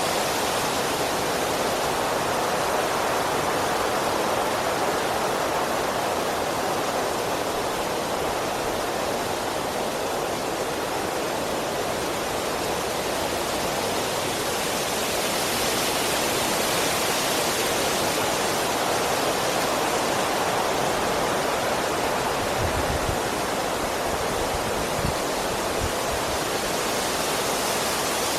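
Strong wind blowing through trees: a steady rushing of leaves and branches that swells and eases slowly, with a few brief low thuds near the end.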